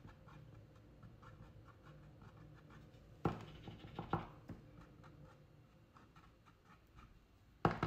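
Paint marker tip dabbing and scratching on a plastic light switch cover: soft, quick tapping with a couple of sharper clicks midway and the loudest click near the end.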